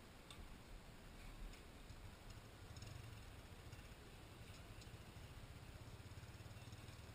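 Near silence: a faint low hum that grows slightly stronger about two seconds in, with a few faint ticks.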